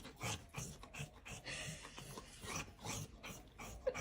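A dog making short, uneven breathy sounds, about three a second.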